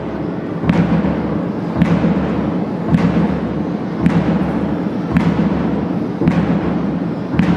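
A drum beating a slow, steady march rhythm, about one beat a second, each beat ringing on in a large hall.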